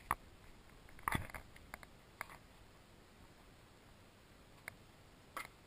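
Faint handling sounds of a drink can being poured and moved: a few short clicks and taps, a small cluster about a second in and single ones later, over low background hiss.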